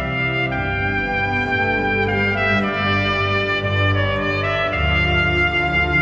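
Piccolo trumpet playing a slow, sustained melody over Allen organ chords with deep held bass notes. The organ's bass changes about half a second in and again near five seconds in.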